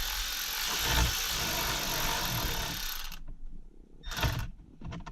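Power screwdriver running for about three seconds, driving out a Torx screw from the steering column trim, with a short second burst near the end.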